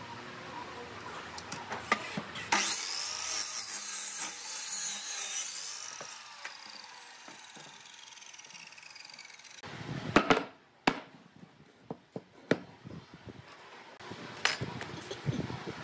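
A sliding miter saw's blade spins up and cuts through a thick pine board for a few seconds, then runs down. Near the end come several sharp wooden knocks as the cut pieces are handled and set down.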